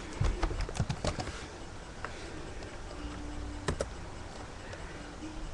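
Light clicking and tapping: a quick run of small clicks in the first second or so, then a few scattered single clicks.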